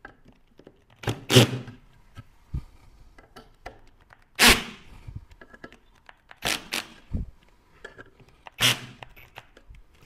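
Cordless drill-driver driving screws into a metal table frame in several short trigger bursts, about one every two seconds, with small clicks and knocks of handling between them.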